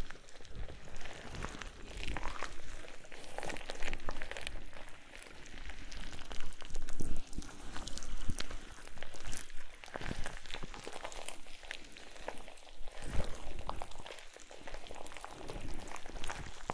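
Close binaural ASMR crackling: dense small wet clicks and pops that swell and fade every second or two. It is the sound of suckered tentacles massaging the listener's head.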